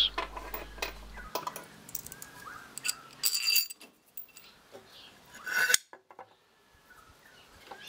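Light clinks and a ringing chink from a steel threaded rod being handled, then a louder metallic rattle a little past the middle as the rod is pushed through the hole in a wooden clamp jaw.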